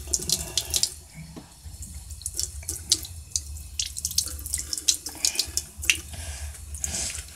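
Water splashing and dripping in irregular short bursts as a wet, soapy washcloth is squeezed and scrubbed over a face.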